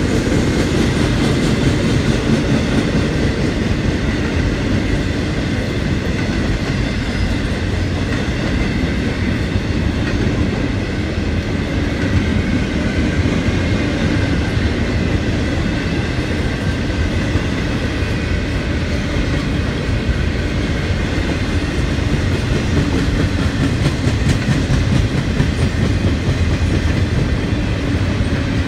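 CSX intermodal freight train's container cars rolling past on the rails: a steady, unbroken rumble, heaviest in the low end, with faint steady high tones above it.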